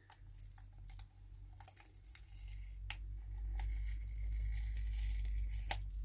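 A Teflon mouse-skate sticker is being peeled off a plastic mouse base with a knife blade. Its fibrous adhesive backing makes a tearing sound that grows louder through the second half, with a few small clicks and a sharp click near the end.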